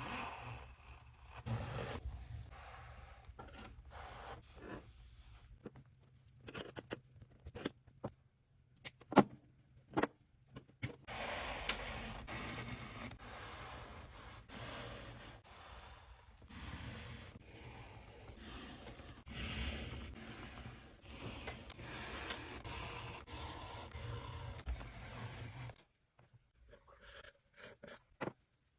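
Hands working a leather baseball glove: irregular scraping and rubbing of leather, with a few sharp clicks and knocks, one louder than the rest about nine seconds in.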